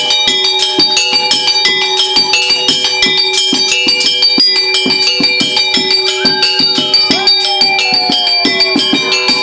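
Music with a fast, steady drum beat and ringing, bell-like metallic tones.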